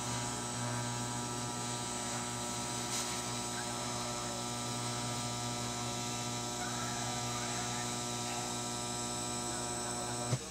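TIG welding arc burning steadily on steel, a continuous electric hum with many overtones that cuts off with a short click near the end as the arc is broken.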